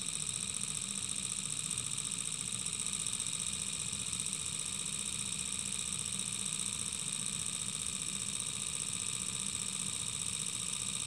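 Small homemade brass Stirling engine, fired by an alcohol lamp, running steadily: a fast, even mechanical clatter from its pistons, crank linkage and flywheel. It is running smoothly, a binding point in its mechanism having been found and freed.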